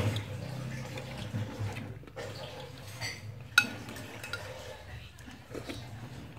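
Metal spoon clinking and scraping against a glass food container while cilok balls in broth are scooped and eaten, with close mouth and eating sounds; a sharp clink stands out about three and a half seconds in.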